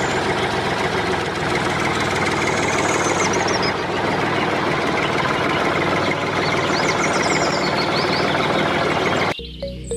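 Steady, dense machine noise that runs loud and unchanging, with a few faint high chirps over it, then cuts off abruptly just before the end.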